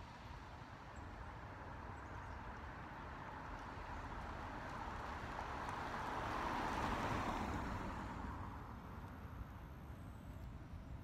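An SUV driving past on an asphalt street, its noise swelling as it approaches, loudest about seven seconds in, then fading away.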